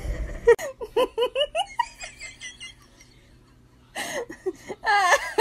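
A woman giggling in a quick run of short, high laughs that fade out about three seconds in. After a short lull, a voice laughs and exclaims again about four seconds in.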